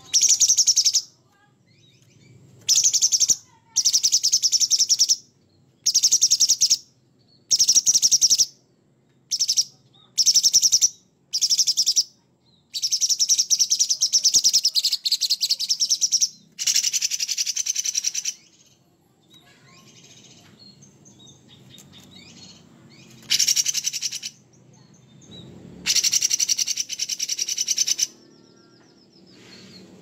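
Cucak cungkok leafbird singing vigorously in harsh, rough phrases: about a dozen rapid, chattering high-pitched bursts, from half a second to about three seconds long, with short pauses between them.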